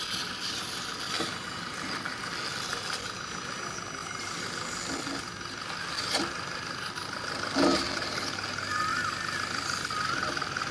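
Electric motors of scale RC crawler trucks whining as they creep over dirt mounds, with short knocks from tyres and chassis on the ground, the loudest about three quarters through. Near the end the whine wavers up and down with the throttle.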